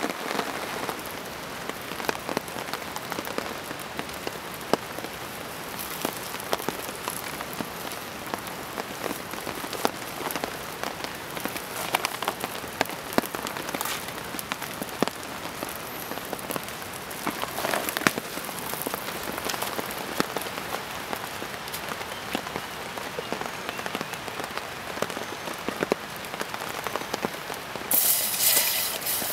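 Heavy rain falling on dense forest foliage: a steady hiss dotted with single drops knocking on leaves. Near the end a louder, brighter rush of water starts, water being poured into a steel pot set over a campfire.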